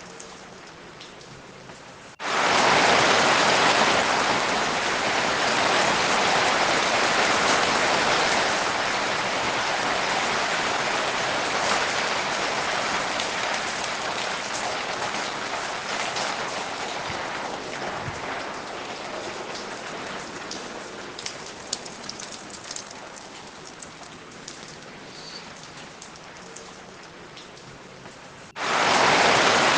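Steady rain, quieter at first and then suddenly much louder about two seconds in. It eases slowly to a lighter patter with scattered drip clicks, then jumps back to loud rain near the end.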